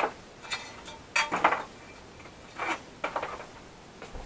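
Metal parts being handled on a workbench: about five short clinks and scrapes, the loudest right at the start, with a little metallic ring.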